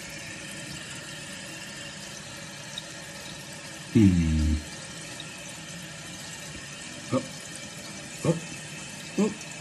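Toilet tank refilling through a newly replaced fill valve: a steady hiss of water running into the tank as the float rises.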